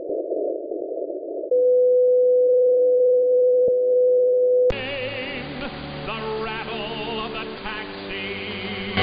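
Longwave radio heard through a KiwiSDR web receiver tuned to 225 kHz. First comes hiss through a narrow filter, then a steady beat tone from the station's carrier. About halfway through, the receiver switches to AM and the broadcast of Polish Radio's Jedynka comes in as music, muffled by the narrow AM audio bandwidth.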